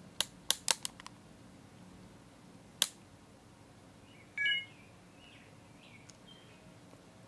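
Quiet room with a handful of sharp clicks: a quick run of about five in the first second and one more a couple of seconds later. About halfway through comes a brief high chirp.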